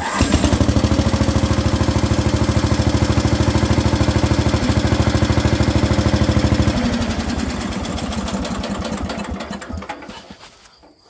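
Roper RT13 garden tractor's 13 hp Briggs & Stratton engine starting at once and running steadily with an even beat, then, about seven seconds in, slowing and dying away as it is shut off.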